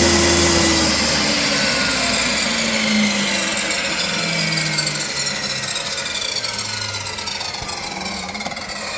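Delta Shopmaster table saw switched off: the motor's steady hum and whine hold for under a second, then fall steadily in pitch as the motor and blade coast down.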